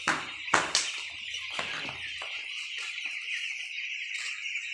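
A shed full of ten-day-old broiler chicks peeping continuously in a dense, high chorus. A few short knocks sound in the first two seconds.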